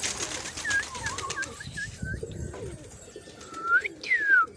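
A flock of domestic pigeons taking off, wings clattering, with a few short whistled notes at first and a loud whistle that rises and then swoops down near the end. Faint pigeon coos sound underneath.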